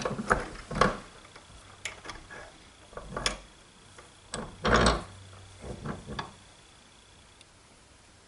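Bench vise being tightened on the swivel nut of a stainless steel flex pipe: a string of metal clicks and clanks from the sliding vise handle and the corrugated pipe, the loudest just before five seconds in, fading out after about six seconds.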